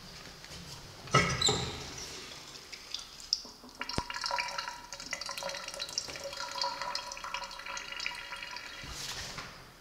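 Antique stall urinal being flushed: a sudden rush about a second in, then water running down into the drain with a steady tone over it, easing off near the end.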